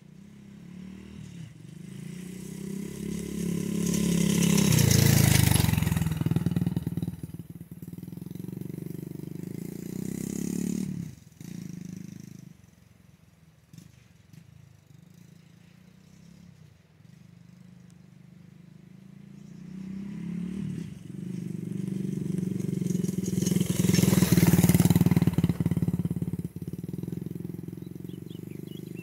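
Dirt bike engine passing by twice. It grows louder to a peak about five seconds in, fades away, then comes back to a second peak near the end and fades again.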